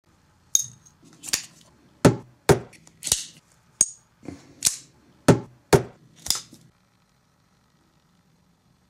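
A series of about a dozen sharp clicks and knocks, irregularly spaced over about six seconds, a couple of them with a brief high metallic ring. They then stop.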